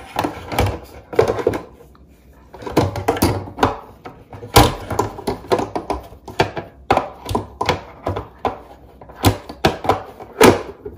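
Plastic front filter cover of an AquaTru countertop reverse-osmosis water filter being worked shut by hand over the filter cartridges: a run of clicks, knocks and thunks, the loudest about four and a half seconds in.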